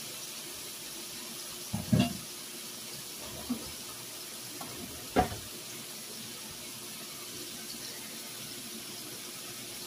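Beef tips sizzling steadily in hot vegetable oil in a skillet, with brief knocks about two and five seconds in.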